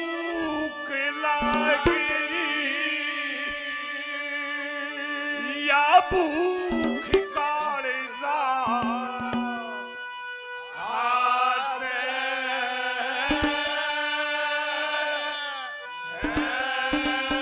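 A male singer drawing out long, wavering held notes of a Haryanvi ragni in several phrases with short breaks. Steady accompanying instrument tones and occasional drum strokes sound beneath, with a quick run of drum strokes near the end.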